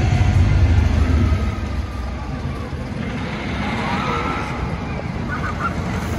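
Wooden roller coaster train rumbling along its timber track, loudest for the first second and a half and then easing off, with faint high wavering calls over it.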